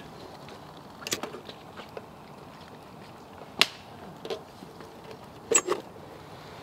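Sharp metal clicks and clanks from a Feuerhand Baby Special 276 hurricane lantern being handled as it is lit. There are a few separate clicks, the loudest a little past halfway and a quick pair near the end.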